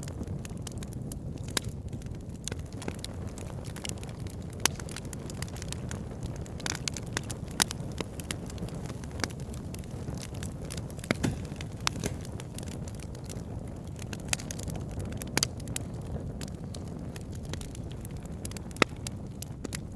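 Wood logs burning in a campfire: sharp, irregular crackles and pops, several louder snaps among them, over a steady low rumble.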